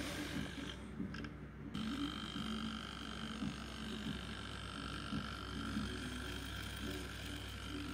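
Model BR Class 03 diesel shunter running on a toy railway: its small electric motor buzzes unevenly while a steady high whine sounds over it, and the wheels rattle along the plastic-sleepered track.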